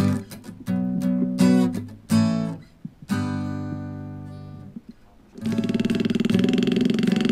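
Acoustic guitar music, plucked notes and strums left to ring, one note fading out slowly. About five seconds in, the fast, steady hammering buzz of a pneumatic hand graver cutting metal comes in.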